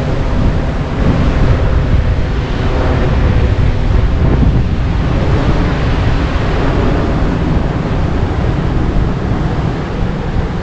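Wind buffeting the microphone: a steady, loud rumble with a hiss above it, rising and falling slightly without a break.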